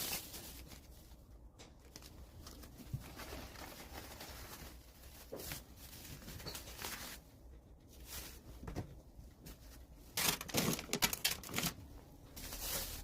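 Faint rustling and crinkling from something being handled in a small room, with a louder run of rustles and taps about ten seconds in.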